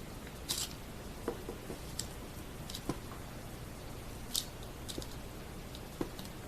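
Light handwork on a freshly glued and clamped mandolin neck: about eight scattered small clicks and short scrapes as squeezed-out glue is worked off, the sharpest scrape about four and a half seconds in, over a steady hiss.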